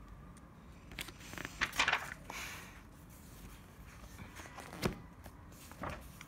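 Paper rustling as pages of a printed textbook are turned by hand, in a few short bursts, the loudest about two seconds in, with sharper flicks near the end.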